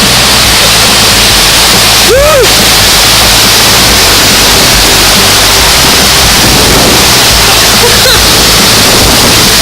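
Loud, steady rush of water, with a short squeak that rises and falls about two seconds in.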